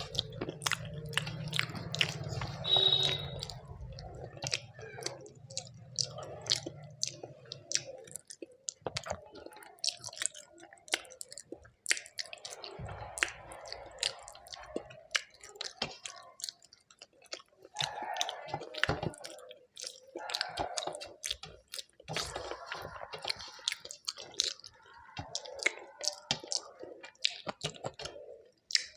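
Close-up wet chewing and lip smacking of a person eating rice-and-lentil khichuri and chicken curry, with many short mouth clicks. A low hum sits under the chewing for roughly the first eight seconds.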